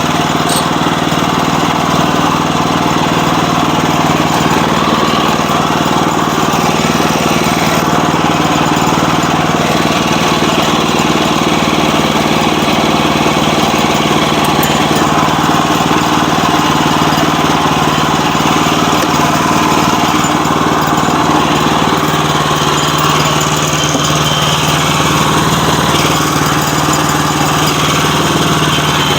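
Sawmill engine running steadily.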